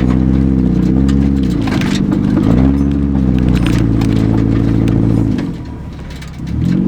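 Off-road vehicle's engine revved hard and held at high revs, dipping briefly and climbing again about two seconds in, then dropping back a little after five seconds before one more short rev near the end.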